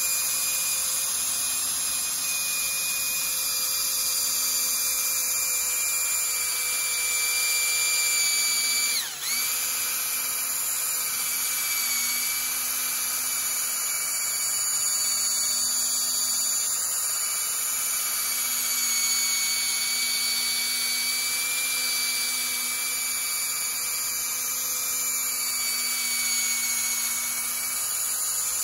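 Small cordless polisher running steadily with a high whine, its soft foam pad buffing fine finishing polish into car paint. About nine seconds in the motor briefly drops in speed and comes straight back up.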